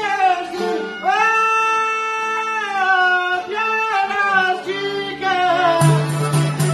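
Albanian folk band of long-necked lutes, violin, accordion and frame drum playing, with a man singing a long, sliding, ornamented phrase over the melody instruments. About six seconds in, the frame drum and full band come back in with a steady beat.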